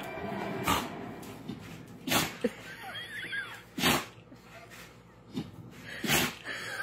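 A dog sneezing in short, sharp bursts, about four times a second or two apart: play sneezes, the signal that its rough play is friendly.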